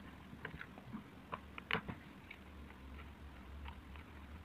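Faint clicks and scrapes of hands handling a small round portable speaker, its plastic casing and metal mesh grille being turned and pressed together, with one louder click just under two seconds in, over a faint low hum.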